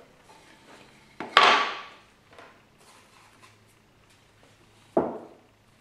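Wooden board set down onto a wooden shooting board: a sharp wood-on-wood knock about a second in that dies away quickly, faint handling rustles, then a second, lighter knock near the end.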